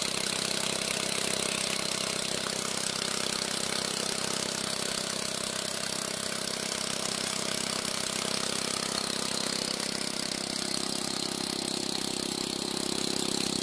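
Motorcycle engine running steadily at an even speed, driving a directly coupled centrifugal water pump under load.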